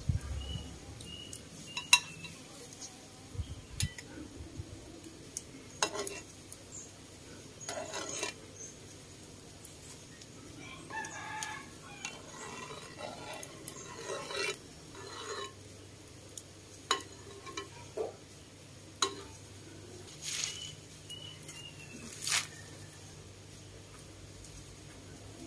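A rooster crowing around the middle, among scattered sharp clinks and knocks of cookware.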